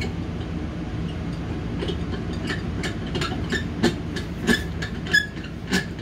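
Glass light globe being handled and turned on its wall fixture: about ten irregular light clicks and clinks from about two seconds in, one with a brief glassy ring, over a steady low hum.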